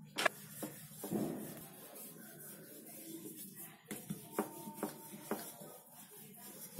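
Wooden rolling pin rolling out a ball of dough on a round rolling board: soft rubbing with a few light knocks, most of them in the second half.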